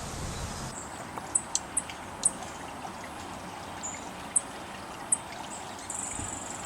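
Steady trickle of running water, with about half a dozen short, very high chip notes from small birds scattered through it.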